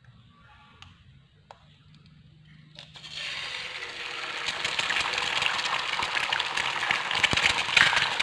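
A few faint taps, then about three seconds in a raw egg drops into hot cooking oil in a non-stick frying pan and sizzles and crackles, growing louder as it fries.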